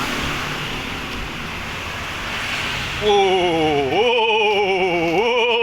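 Steady background noise, then about three seconds in a voice starts singing a held, wavering melody with strong vibrato that steps up in pitch twice.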